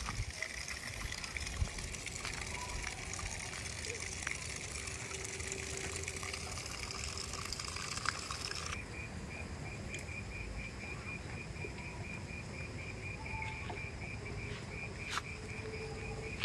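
Outdoor ambience: a steady rushing hiss, then, after an abrupt change about halfway through, an insect chirping in a fast, even rhythm of about four to five chirps a second over a low rumble.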